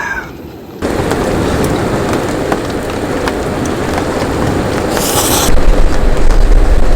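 Steady rain with wind, starting abruptly just under a second in; a low wind rumble comes in about halfway and stays to the end.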